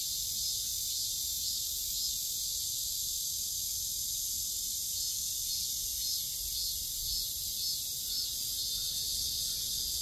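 Steady high-pitched chorus of late-summer insects, with a faint low rumble underneath.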